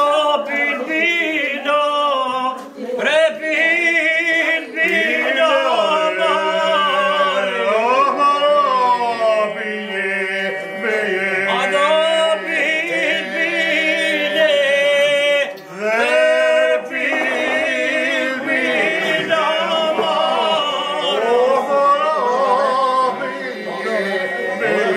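Men singing an Albanian traditional folk song unaccompanied, several voices weaving over a steady low held note, with short breaks for breath.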